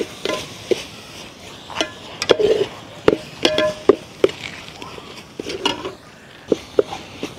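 Long metal spoon stirring a thick, wet mix of chopped vegetables and sauce in a large metal pot, with irregular clinks and knocks of the spoon against the pot.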